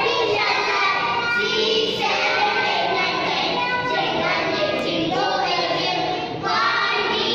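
A group of young children singing a song together in unison, phrase after phrase without a break.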